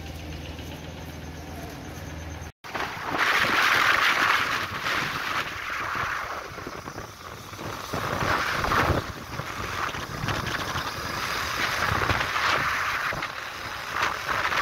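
A steady low engine hum, cut off suddenly about two and a half seconds in. Then wind buffets the microphone and a motorcycle runs along the road with the camera riding pillion, the rushing swelling and easing every few seconds.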